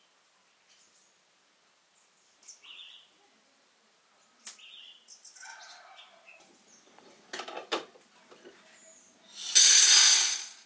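Water poured from a glass jar into a stainless steel pot: a loud splash of about a second near the end. It follows two sharp knocks, and faint bird chirps are heard earlier.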